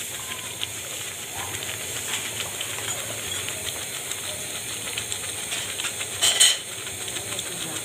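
Thick carrot firni of milk, rice and grated carrot simmering in a pan on medium heat, bubbles popping over a steady hiss while the added sugar dissolves. A brief louder burst of noise comes about six seconds in.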